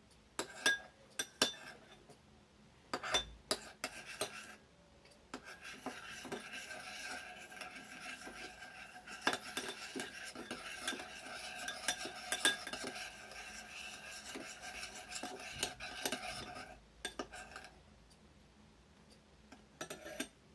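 A spoon stirring glue-and-borax slime mixture in a bowl as it starts to thicken, clinking and scraping against the bowl. A few separate knocks come first, then about eleven seconds of steady scraping stirring, then two or three knocks near the end.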